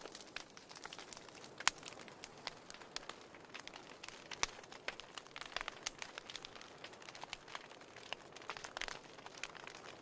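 Wood fire crackling in an open fireplace: irregular sharp pops and snaps over a soft steady hiss.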